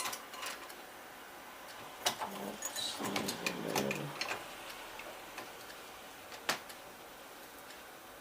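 Scattered light clicks and taps of metal bolts and lock hardware as the mounting bolts are worked through a deadbolt and felt around to find the threaded holes of a smart lock, with a sharper click about six and a half seconds in.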